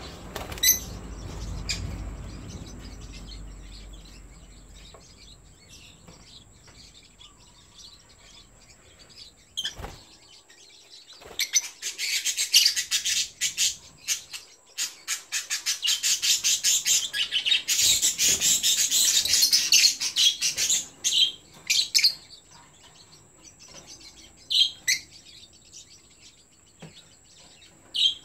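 Yellow lovebirds calling: scattered sharp chirps, and in the middle a long spell of rapid high-pitched chattering lasting several seconds.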